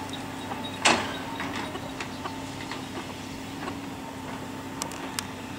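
Volvo excavator's diesel engine running steadily as its grapple handles a tree stump, with one sharp knock about a second in and two light clicks near the end.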